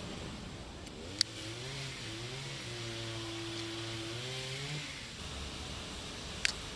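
Two sharp metal clicks about five seconds apart, as the multitool's liner-locked blades are handled and snap into place. In between, the faint hum of a passing vehicle's engine rises and falls in pitch.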